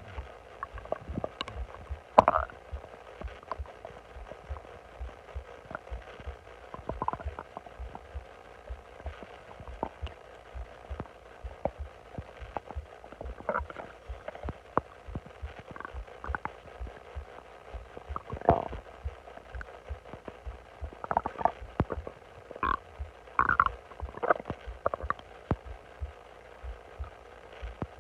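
Bloated human stomach growling: irregular gurgles, squeaks and bubbling pops, with louder bursts about two seconds in, again past the middle, and a cluster near the end, over a faint regular low pulsing.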